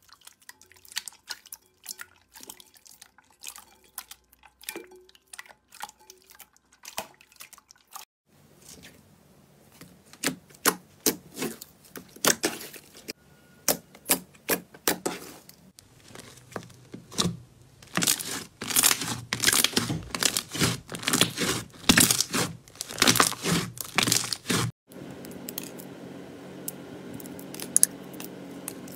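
Hands squishing and poking slime: wet squelches and sharp sticky pops and clicks, first from clear slime kneaded in a bowl, then from a red glossy slime pressed with the fingers, busiest and loudest in the later part. The sound cuts off suddenly near the end and gives way to a steady scratchy hiss.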